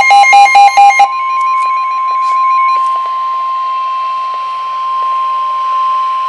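Emergency Alert System warning alarm tone from NOAA Weather Radio: a single steady tone of about 1 kHz (the 1050 Hz alert tone) over radio hiss. For about the first second, rapid two-pitch electronic beeps sound over it.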